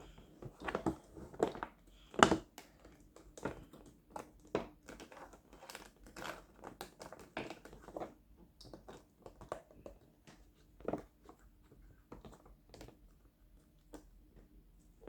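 A bottle being handled, making a run of irregular crackles and clicks, the sharpest about two seconds in.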